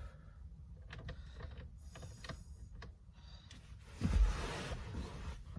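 Hand-tool and handling noises while the steering wheel's T55 Torx bolt goes in: a few scattered clicks, then about four seconds in a louder thump and scraping rush lasting over a second.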